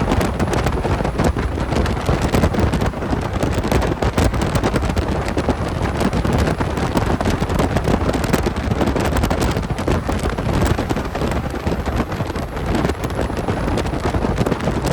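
Logging truck driving: a steady rumble of engine and road noise, with wind buffeting the microphone.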